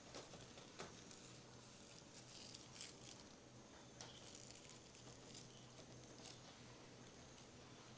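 Faint rustling and light taps of dried lavender stems being gathered and laid down on a wooden table: about half a dozen soft clicks a second or so apart over a near-silent background.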